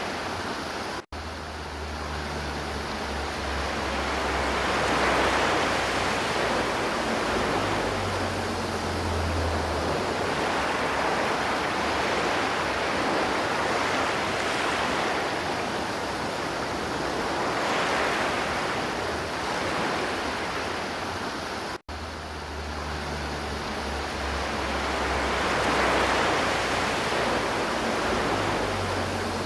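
River water flowing: a steady rushing with slow swells in level. It cuts out for an instant twice, about a second in and about two-thirds of the way through.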